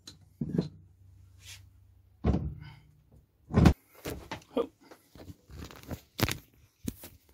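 Irregular thumps and knocks of handling on a wooden workbench as a small moped engine crankcase is lifted and clamped upright in a bench vise, the heaviest knocks about two and three and a half seconds in.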